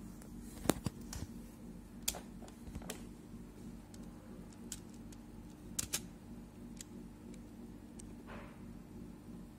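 Sharp single clicks of a laptop's pointer buttons, about ten of them at irregular moments, over a steady low hum.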